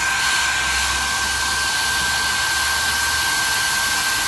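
Electric blower running steadily: a constant rush of air with a steady high whine.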